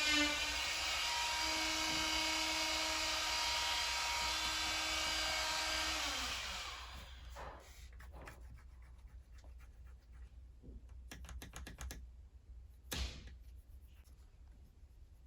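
An electric power tool's motor running steadily, then switched off about six seconds in and winding down. Afterwards there are a few light clicks and one knock near the end as the pipe parts are handled.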